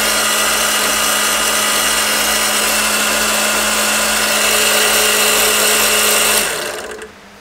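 Benchtop drill press motor running with a steady hum and a loud high whine. About six and a half seconds in it is switched off, and the hum drops in pitch as the motor winds down.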